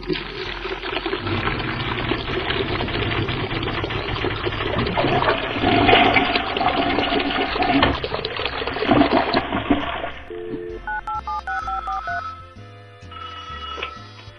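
Toilet flushing into a long rush of water, as sound effects over backing music. About ten seconds in the water stops and telephone ringing tones take over, in quick alternating beeps.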